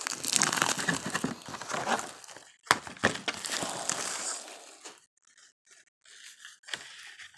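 Brown paper mailer rustling and crinkling as a Blu-ray case in its slipcover is slid out of it, with a sharp tap a little under three seconds in. The rustling dies down about five seconds in, leaving lighter handling noises and a couple of taps near the end.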